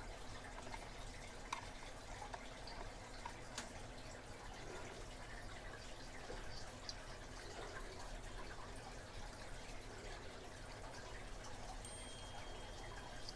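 Faint close-up handling of a small lock: a few light clicks of a tiny pin and tool as a pin is fitted into a padlock's cylinder, over a low steady hum.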